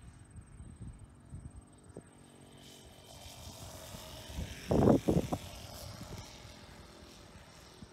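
Sportster 60 RC model airplane flying in low with its propeller buzzing, then a quick cluster of loud thumps about five seconds in as it touches down and bumps along the grass.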